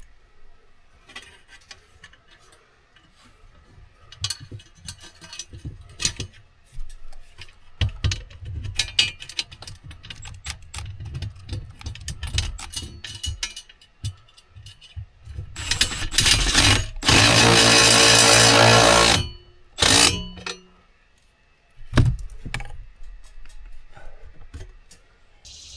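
Construction work noise: scattered knocks and handling clatter, then a power tool running loudly for about three seconds about two-thirds of the way in, with a shorter burst just before it and another just after.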